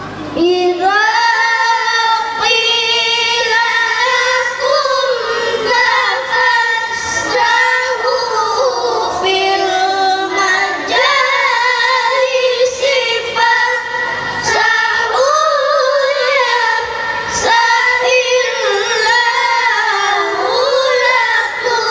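Melodic Quran recitation (tilawah) by schoolchildren, voices amplified over a PA system: long held phrases with ornamented, wavering pitch, separated by short breaths.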